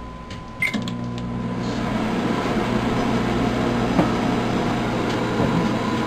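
Microwave oven starting up with a 60-watt light bulb inside. A short beep and a click come under a second in, then the oven settles into a steady hum as it runs.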